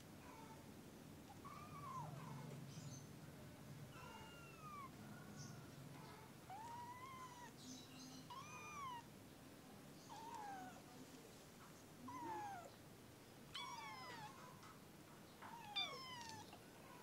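Kittens mewing faintly, a string of short high mews that rise and fall in pitch, about one every second.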